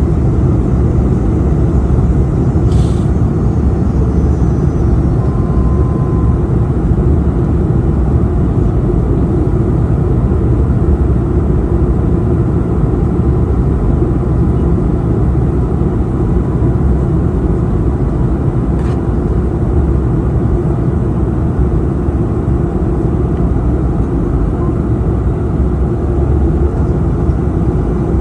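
Steady low roar of an Airbus A220-300 and its Pratt & Whitney PW1500G geared turbofans, holding an even level throughout with no rise or fall.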